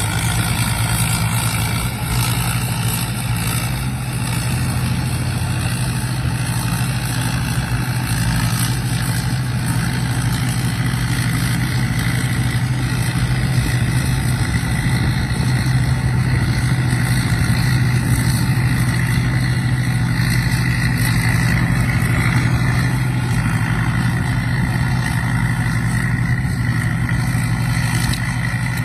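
Rice combine harvester running steadily at work: a deep, even engine drone with a steady high whine above it.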